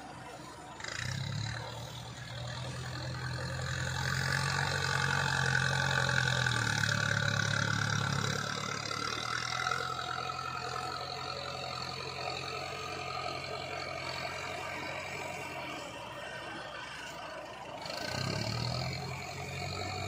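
XCMG hydraulic excavator's diesel engine working under load through a dig-and-swing cycle, with a higher whine over the engine note. The engine rises about a second in, eases off around eight or nine seconds, and picks up again near the end as the loaded bucket is lifted.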